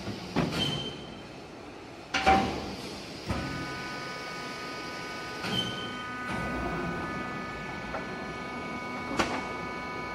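Metal clanks of a crushed steel pail sliding off a hydraulic drum crusher's chute and dropping into a cardboard box, loudest about two seconds in, with a few more knocks after. From about three seconds in a steady whine of several tones sets in and holds.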